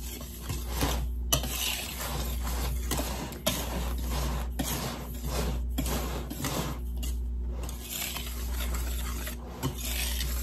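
Wire whisk stirring dry flour in a large mixing bowl: repeated swishing strokes with the wires scraping and tapping against the bowl, blending the dry ingredients and breaking up lumps.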